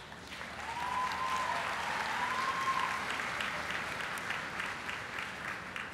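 Audience applauding, swelling about half a second in, with a long high cheer held over it for the first few seconds, then thinning into scattered claps that fade near the end.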